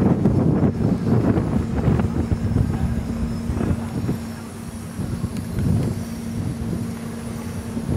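Wind buffeting the microphone, strongest in the first couple of seconds, with a steady low hum coming in underneath about two seconds in.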